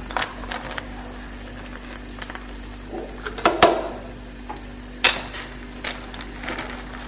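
Metal skimmer clinking and knocking against a stainless steel pot of boiling snails as the foam is skimmed off, a few scattered strikes with the loudest about three and a half and five seconds in, over a steady low hum.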